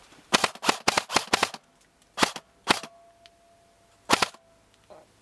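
Airsoft rifle firing a string of sharp shots: five in quick succession, then two more, then a last shot about four seconds in.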